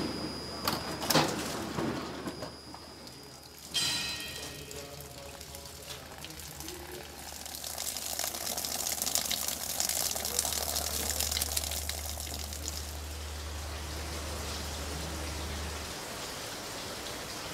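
Greenhouse working sounds over a low steady machine hum: a sharp knock about a second in, a sudden metallic clatter near four seconds, then several seconds of hissing like running water.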